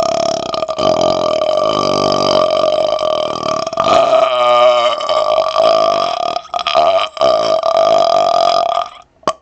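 A man's long, drawn-out burps, loud and close to the microphone, running almost without a break with a few brief gaps, then stopping near the end with one short sharp sound.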